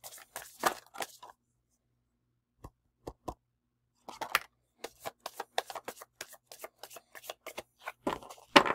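A deck of oracle cards being shuffled by hand, making quick runs of short card flicks and taps. There is a short run at the start, a lull with a few single taps, then a longer, busier run from about four seconds in, with the loudest slap near the end.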